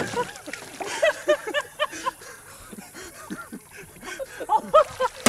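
People laughing in quick bursts of short ha-ha syllables as a man who fell overboard climbs back into the boat.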